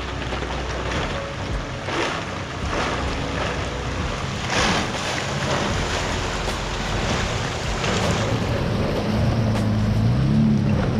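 Toyota Tacoma pickup driving through a deep, ice-skinned mud puddle: water and slush splash around its tyres in several loud surges. From about two-thirds of the way in, its engine revs up and down as it pushes through the mud.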